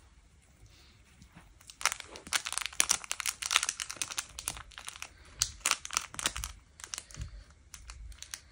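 Crinkle material inside a plush dog toy crackling and rustling in quick, irregular crackles as a dog chews at it. It starts about two seconds in and thins out after about five seconds.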